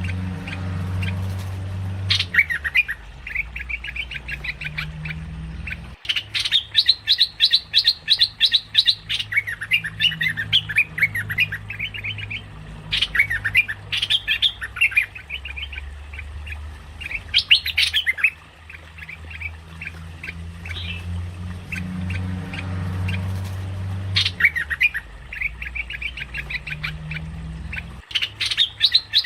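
Merbah lekir, a bulbul, calling in bouts of rapid, chattering notes, each bout lasting a few seconds, with short pauses between them and a low hum underneath.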